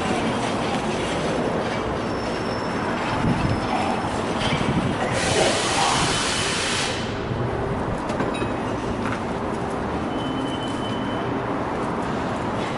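Steady, noisy rumble of city background picked up on an action camera's microphone. A bright hiss comes in about five seconds in and lasts nearly two seconds.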